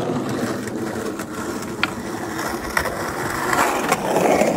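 Skateboard wheels rolling over rough pavement: a steady gritty rumble with a few sharp clicks, growing louder near the end as the board passes close.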